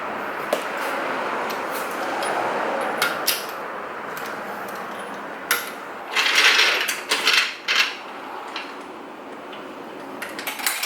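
Metal tools and parts being handled, clinking and clattering, with a louder scraping rustle about six seconds in, over a steady background hiss.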